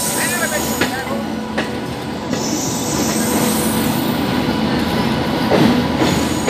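Passenger train running over the rails: a steady rumble of wheels and coaches, with a few clicks over rail joints and brief wheel squeal, one rising squeal near the end. Heard from beside the coaches, with another train running close alongside.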